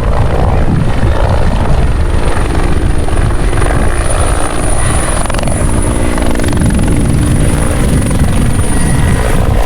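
Firefighting helicopter flying close, its rotor and turbine loud and steady, with a thin high whine above the rotor noise.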